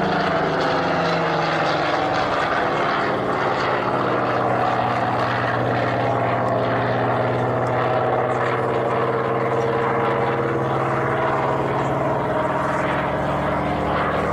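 Propeller aircraft's piston engine running in a steady drone, its pitch sagging slightly in the first couple of seconds and then holding.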